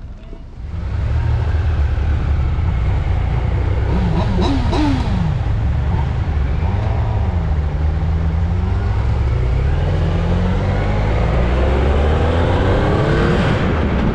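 Motorcycle engine pulling away and accelerating, its pitch rising, dropping back at a gear change, then climbing steadily. Heavy wind rumble on the bike-mounted microphone runs under it.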